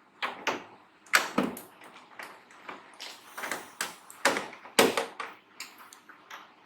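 A series of irregular sharp clicks and knocks, a dozen or so over several seconds, as hard parts are handled and set down on the workbench.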